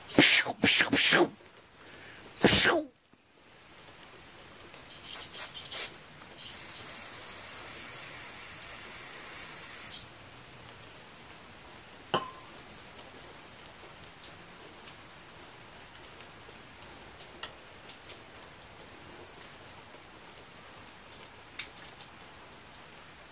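Aerosol parts cleaner sprayed through a red extension straw into a carburetor jet nut to clean it. Several loud short squirts, one more about two and a half seconds in, then a steady hiss of about three and a half seconds. After that come only faint clicks of small carburetor parts being handled.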